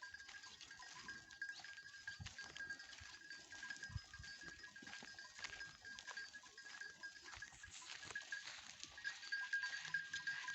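Local goats grazing in the forest, bleating faintly, over a steady high-pitched tone and scattered small clicks.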